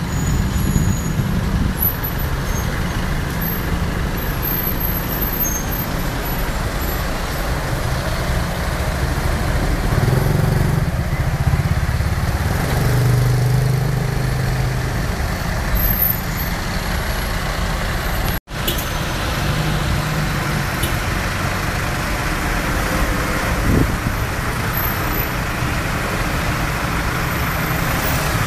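Engine and road noise from the open rear of a moving songthaew pickup taxi in traffic: a steady low engine drone that swells and eases with the throttle, over tyre and traffic noise. The sound cuts out for an instant about two-thirds of the way through.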